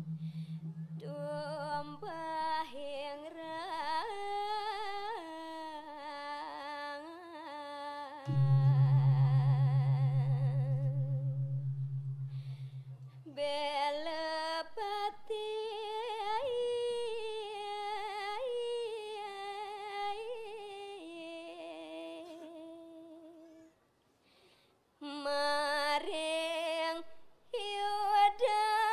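A singer's solo vocal line in Balinese style, with long ornamented notes that bend and waver in pitch. About eight seconds in, a large gamelan gong is struck, and its low hum pulses as it fades over several seconds. A brief pause in the singing comes near the end.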